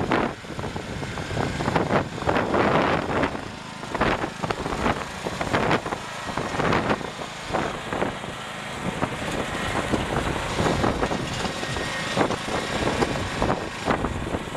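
Husqvarna riding lawn mower's Kohler Courage 597cc gas engine running as the mower drives across rough ground, with uneven, gusty noise and irregular rattles over it.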